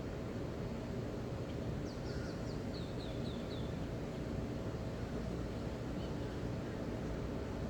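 Steady low rush of ocean surf at the beach. About two seconds in, a bird gives a quick run of about eight short, high, falling chirps.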